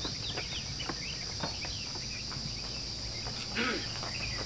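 Steady high-pitched insect drone with many short bird chirps over it.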